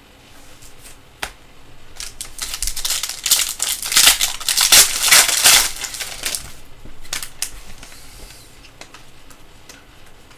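A foil trading card pack being torn open and its wrapper crinkled, with the cards handled. The tearing and crinkling is loudest from about two seconds in to past six seconds, with a few sharp clicks before and after.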